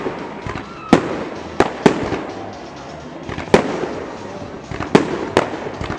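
Aerial firework shells bursting overhead: about six sharp bangs at uneven intervals of roughly half a second to a second and a half, with crackling stars in between.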